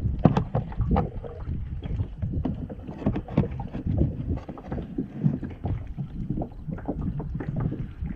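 Irregular knocks and handling noises on a fishing kayak as water moves against the hull, with wind buffeting the microphone.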